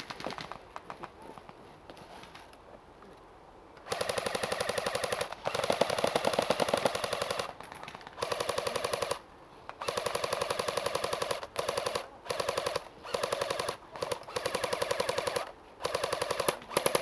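AK-style airsoft rifle firing on full auto in a string of about ten rapid bursts, the first starting about four seconds in, each a fast, even rattle of shots lasting from a fraction of a second to about two seconds.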